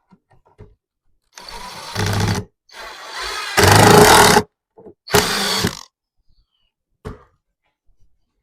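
Power drill driving a wood screw into a pre-drilled hole, running in three trigger pulls, the middle one the longest and loudest, with a short click a few seconds in.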